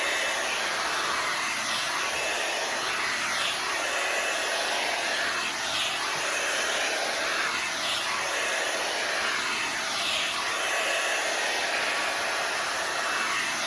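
The Knot Dr. blow dryer running on its high setting, a steady rush of air that swells and dips about every two seconds.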